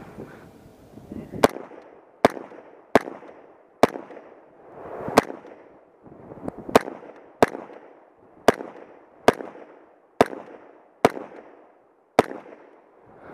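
Twelve single rifle shots from a .300 Blackout AR-15, at an uneven pace of roughly one every 0.7 to 1.5 seconds, each trailing off in echo. The first shot comes about a second and a half in, with two longer pauses near the middle of the string.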